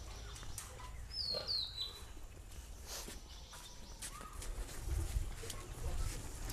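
A bird calling, two quick falling chirps about a second in, over faint outdoor ambience with a low rumble that grows louder near the end.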